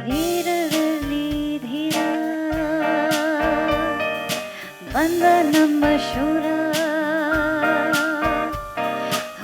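Live band music in a jazz-style arrangement: a lead line of held notes with wide vibrato, sliding into each note, over guitar and regular drum strikes about twice a second.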